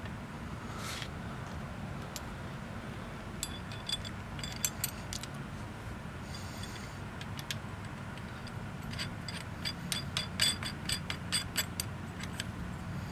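Runs of sharp metallic clicks and clinks from hand tools working a homemade puller on a VW Type 1 engine's oil pump. There is a short cluster a few seconds in and a denser run later on, over a steady low hum.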